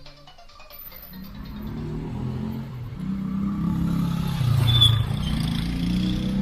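A motor vehicle's engine running and growing louder over the first few seconds, with its low pitch rising and falling. A brief sharp high sound is heard about five seconds in.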